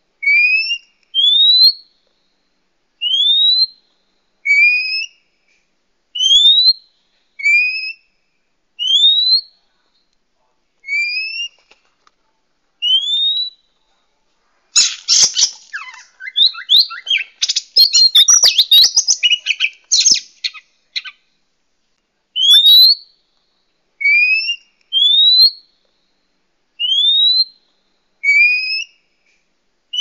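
Oriental magpie-robin (kacer) calling: short rising whistles, one every second or so, broken about halfway by some six seconds of fast, scratchy chattering song, then the rising whistles resume. This is a bird-trapping lure call (suara pikat) for wild magpie-robins.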